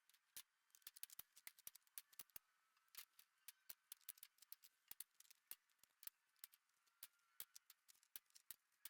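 Near silence with faint, irregular sharp clicks and crackles, several a second, over a faint high wavering tone.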